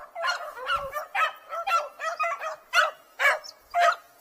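Beagles baying on a rabbit's trail: a run of separate, pitched barks at roughly two a second, getting louder and more regular toward the end.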